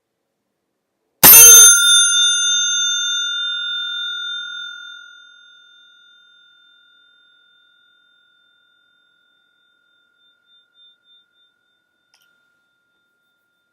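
A Crane Suzu brass bicycle bell is struck once by its hammer, a loud ding about a second in. It rings on with a clear, bright tone that fades slowly over several seconds, the lowest note lingering longest.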